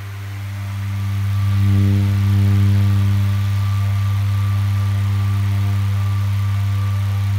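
Homemade fan driven by a 12 V brushless DC motor running at full speed: a loud, steady hum with a thin whine above it. It grows louder over the first two seconds, then holds level.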